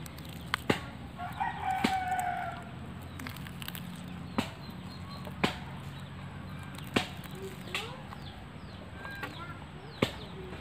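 A rooster crows once, a long call starting a little over a second in. A few scattered sharp clicks and taps come from a banana-leaf fish parcel being tied and handled on a plastic cutting board.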